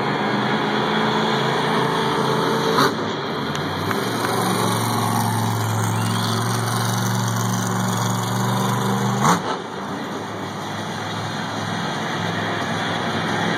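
Monster truck's engine running at a steady pitch, stepping up to a higher pitch about four seconds in and dropping back about nine seconds in. Sharp knocks come at about three and nine seconds.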